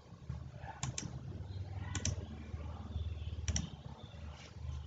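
Three pairs of light, sharp clicks about a second and a half apart, over a faint low hum.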